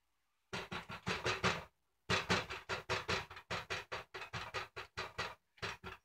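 Plastic bag crinkling in rapid short bursts, several a second, starting about half a second in, as a cat noses at it.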